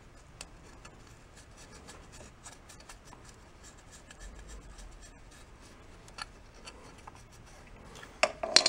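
Faint scratching and rubbing as the pressure cooker's pot-detection switch contacts are scrubbed by hand to clear dried soup residue, with fine small clicks throughout and a few louder clicks about eight seconds in.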